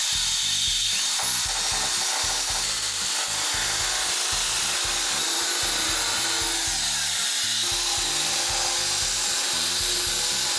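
A small handheld electric mini sander running continuously at a steady pitch, sanding rough lumps of paint out of the gaps of a painted radiator.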